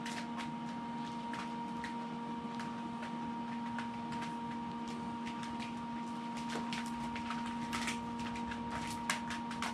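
Grease gun being worked on the universal joint's grease fitting of a MerCruiser sterndrive: scattered small clicks and squishes, busier in the last few seconds, as fresh grease is forced into the joint. A steady hum runs underneath.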